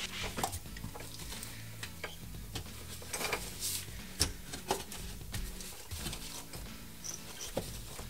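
Hands handling and pressing fibre sound-deadening fabric pads into a car's rear seat pan: irregular soft rustling with scattered light clicks and taps, a few sharper ones in the second half.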